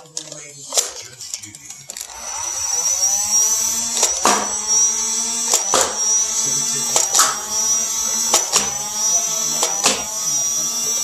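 A battery-powered motorized Nerf blaster whirring, starting about two seconds in, with a steady high whine and a sharp click about every second and a half.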